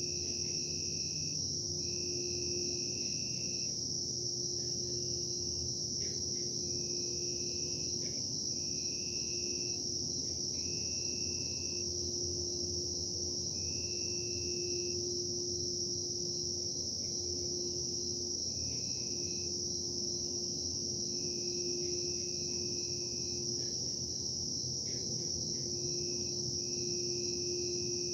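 Constant noise of industrial machinery: a steady low hum and rumble, a continuous high-pitched trill above it, and a higher tone that breaks on and off every second or two.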